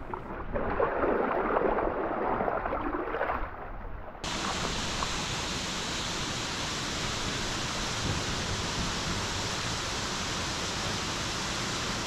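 For the first four seconds, uneven splashing of water around the kayak. It then cuts abruptly to the steady rush of a small runoff waterfall pouring down the rocks into the sea close by.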